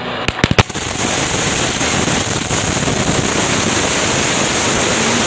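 Crackling anar, a fountain firework packed in a beer can, burning and spraying sparks: a few sharp cracks in the first second, then a steady hissing gush with a crackle running through it.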